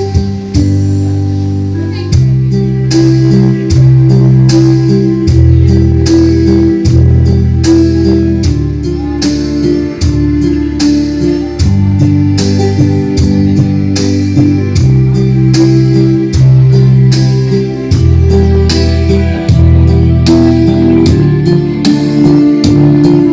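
Bass-heavy dance remix played loud through a Sakura AV-757Ub amplifier and speakers in a sound test. Deep bass notes change about every second under a steady beat of high hi-hat ticks.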